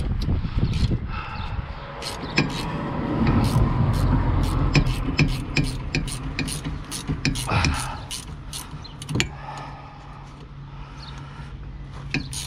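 Ratchet spanner clicking in irregular runs as it turns the 17 mm nut off the lower ball-joint stud of a front anti-roll bar drop link. The nut is coming undone easily.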